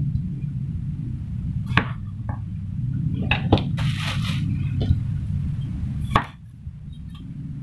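Kitchen knife cutting eggplant on a wooden cutting board: several sharp knocks of the blade striking the board, with a short rustle about four seconds in, over a steady low hum.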